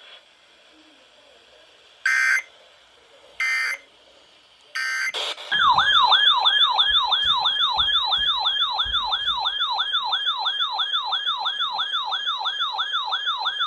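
Three short electronic data bursts, like an EAS end-of-message code, then a loud siren-like warbling alert tone that sweeps upward over and over, about three times a second.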